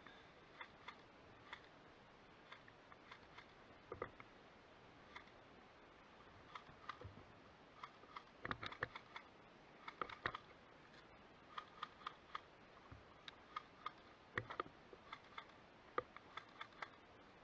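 Near silence broken by faint, scattered short clicks and taps, some coming in quick clusters of several.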